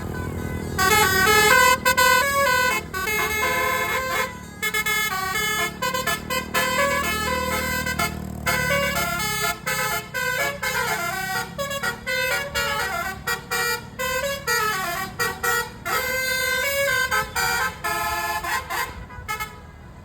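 Indonesian bus telolet horn, a cluster of air-horn trumpets, playing a loud melody of quickly changing notes in short phrases with brief breaks between them. A low engine rumble runs beneath through the first half.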